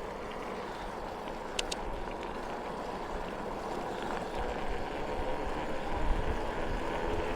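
Steady wind and tyre noise of a bicycle ride on a road, with a low wind rumble on the microphone building toward the end. A couple of brief high ticks come about a second and a half in.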